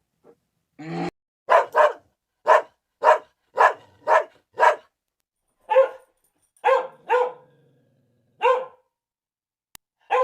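A dog barking, about a dozen short single barks: quick and close together at first, then more spaced out.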